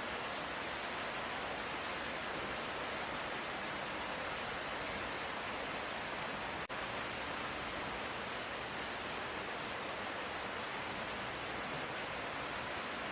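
Steady light rain, an even hiss with no distinct drops or thunder; the sound dips out for an instant about halfway through.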